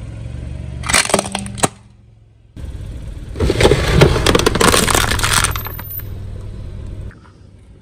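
A car tyre rolling over and crushing brittle objects, with the car's engine humming steadily underneath. There is a short burst of sharp cracking about a second in, then a longer, louder crunching from about three to five and a half seconds.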